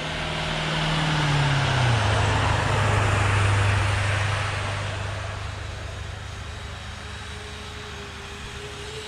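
The brushless motors and tracks of a 1/16-scale Kyosho Blizzard 2.0 RC snow tracker running through snow. A low hum drops in pitch about a second and a half in, and the sound swells for a few seconds and then fades.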